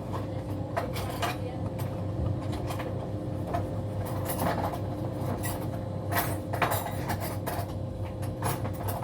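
Irregular knocks, taps and light clatter of hands and a cloth working around the inside of a condenser tumble dryer, over a steady low hum.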